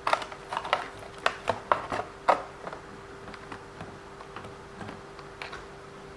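Quick, irregular clicks and clatter of small hard parts and tools being handled while an RC car is taken apart. They are busiest in the first two and a half seconds, then thin out to a few fainter ticks, over a steady faint hum.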